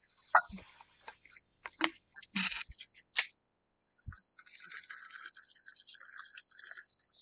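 A few sharp clinks and knocks of a glass teapot and its lid being handled, then hot water pouring from a kettle into the glass teapot as a steady trickle, starting about four seconds in.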